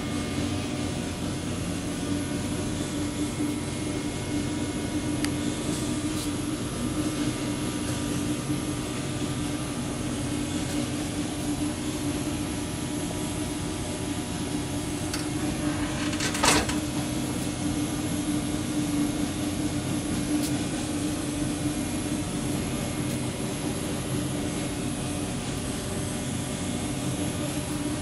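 Steady machinery hum with a strong low drone and a haze of fan-like noise, unchanging throughout. About halfway through there is one short, sharp clack.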